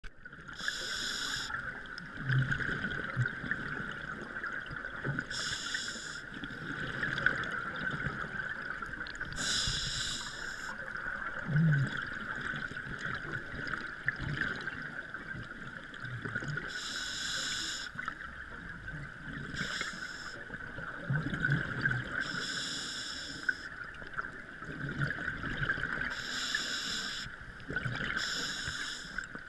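A scuba diver breathing through a regulator underwater: about eight separate hisses of roughly a second each, a few seconds apart, over a steady hiss and low bubbling rumbles from exhaled air.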